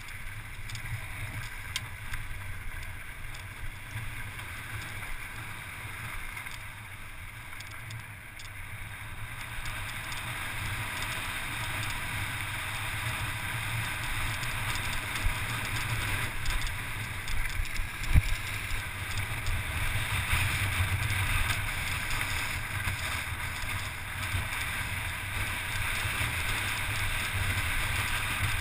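Wind rushing over the microphone and tyres rolling over a loose volcanic gravel track on a fast downhill ride, growing louder about a third of the way in as the pace picks up. A single sharp knock about two-thirds of the way through.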